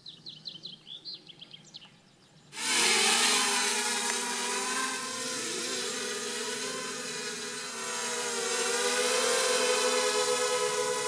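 Faint bird chirps, then about two and a half seconds in the buzzing whine of a small FPV racing quadcopter's motors and propellers starts suddenly and runs on steadily, its pitch wavering a little.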